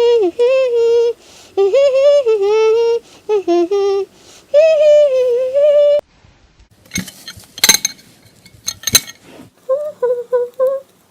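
A person humming a tune with long held notes, breaking off about six seconds in. Then a few seconds of sharp crackles and pops from the slime being worked by hand, and a few short hummed notes near the end.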